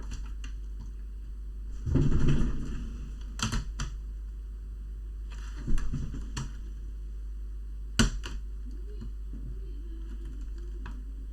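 Plastic clicks, knocks and rustling from handling a laptop's plastic case and internal cables while trying to fit the bottom case shut. There is a louder scraping rustle about two seconds in and a sharp knock near eight seconds, over a steady low hum.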